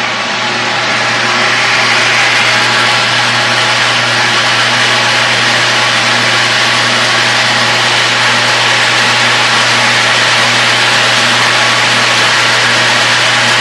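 Coffee dryer and its loading machinery running while being filled with coffee. It makes a steady low hum under a constant rushing noise, which gets louder about two seconds in and then holds.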